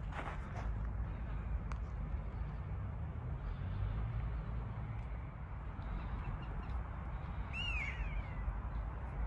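Steady low outdoor rumble, with a single short animal call about eight seconds in: one clear note that rises and then falls.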